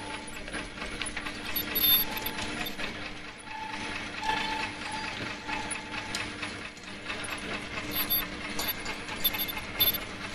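Metal clicks and clinks of an open-end wrench on the adjusting screws and lock nuts of an earloop mask machine. A steady machine hum runs underneath. The clicks are sharpest about two seconds in and again near the end.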